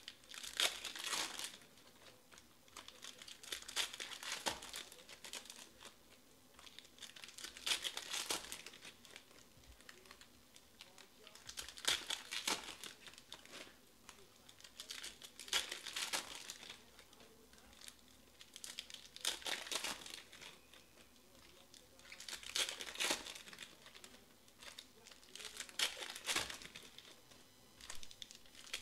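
Foil trading-card packs being torn open and crinkled one after another, with a burst of crinkling about every three to four seconds.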